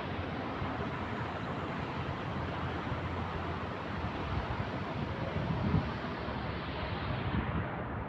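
Steady rushing noise of road traffic, with the higher part of the sound fading away near the end as a vehicle passes off.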